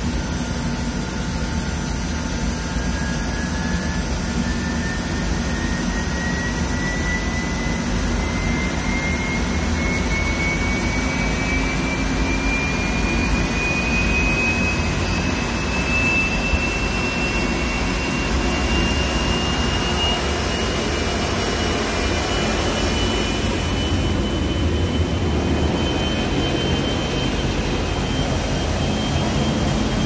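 B&C industrial washer-extractor, 300 lb capacity, in its final high-speed spin: a steady mechanical running noise with a whine that starts a few seconds in and climbs slowly and evenly in pitch as the drum keeps gaining speed.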